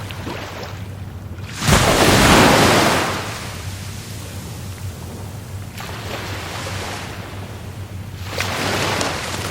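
Rough Caribbean Sea surf: waves breaking in a loud crash about two seconds in that fades over the next second, with a smaller wave breaking near the end.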